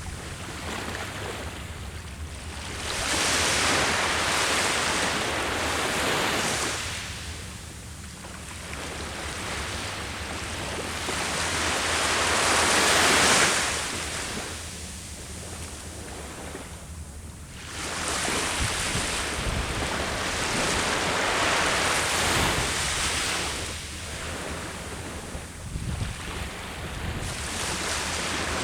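Ocean surf breaking on the shore, the rush of each wave swelling and then drawing back, about four surges over the stretch.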